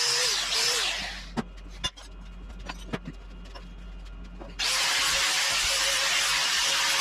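A power tool runs loud and steady, shuts off about a second in, and starts again about four and a half seconds in. A few sharp knocks sound in the pause between.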